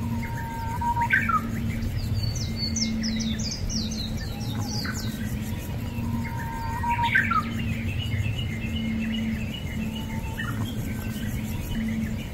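Birds chirping and calling, with a similar song phrase heard twice about six seconds apart and a rapid run of high chirps in between, over a steady low hum.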